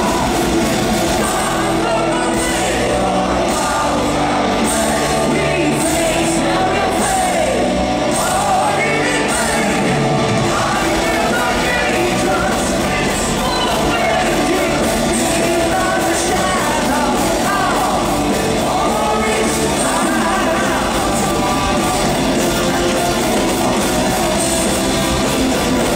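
Symphonic power metal band playing live, with a singer's voice carried over the band, recorded from the audience in a large hall.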